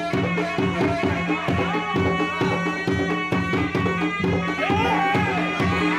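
Traditional silat accompaniment music: a reedy, oboe-like wind instrument plays a winding, ornamented melody over a steady drone and fast, even drum strokes.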